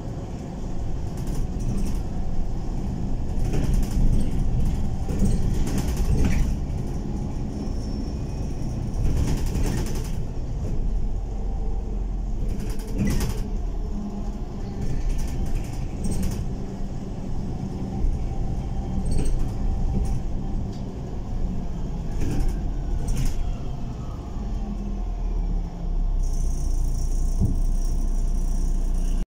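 City bus heard from inside while driving: a steady low rumble of engine and road noise, with frequent short knocks and rattles. Near the end a steady high hiss joins in.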